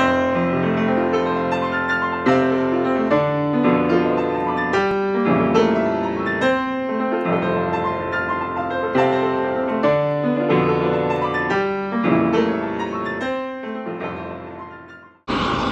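Piano music, a steady run of struck notes and chords, fading out near the end. Just before the end it cuts to a steady rush of aircraft engine noise.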